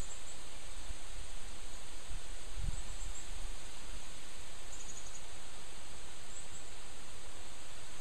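Wind rustling through a leafy tree as a steady hiss, with a few low gusts buffeting the microphone in the first three seconds. Faint high chirps come now and then.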